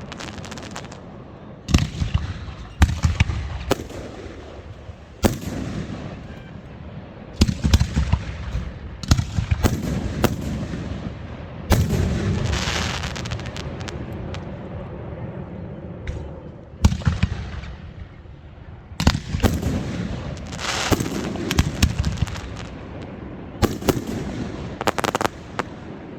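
Fireworks going off: a long run of separate sharp bangs, each trailing off in a rumbling echo, with bursts of rapid crackling about halfway through and again about twenty seconds in.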